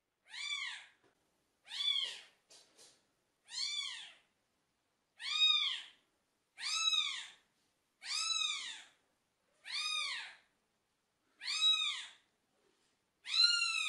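Kitten meowing over and over: nine high mews, each rising then falling in pitch, about one and a half seconds apart.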